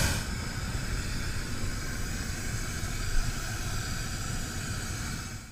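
Hot air balloon's propane burner firing overhead: a steady rushing noise, with one brief knock a little past halfway. The noise cuts off abruptly at the very end.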